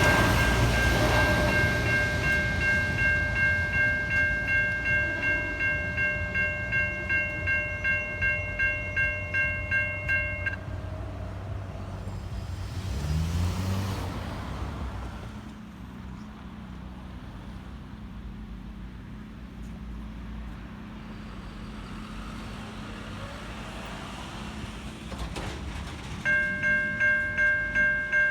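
Safetran Type 3 electronic level-crossing bells ringing about twice a second over the low rumble of a passing train. The bells stop about ten seconds in, leaving quieter background noise. Near the end they start again abruptly as the crossing activates once more.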